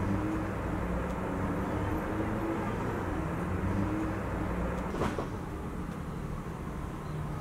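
Road traffic going by: a steady drone of vehicle engines with a few drifting engine tones, and a single sharp knock about five seconds in.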